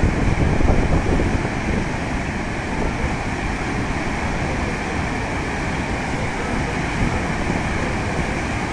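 Muddy floodwater of a flash flood rushing and churning down a river channel: a steady, loud rush with a deep rumble, a little louder in the first couple of seconds.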